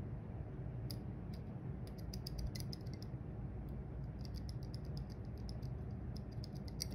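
Faint, irregular small metallic clicks in loose clusters as a dimple pick works the pins of a brass Chinese pin-in-pin dimple lock cylinder held under tension, over a low background hum.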